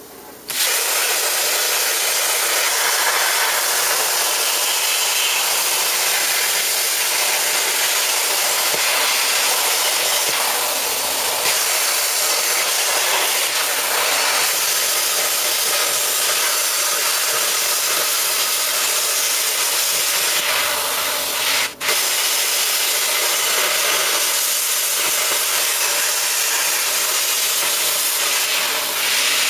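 Handheld plasma cutter cutting through steel sheet: the steady, loud hiss of the air-plasma arc, which cuts out for a moment about 22 seconds in and then carries on.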